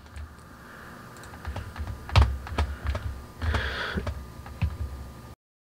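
Irregular clicks and taps of a computer keyboard and mouse over a faint steady hum, cutting off abruptly near the end.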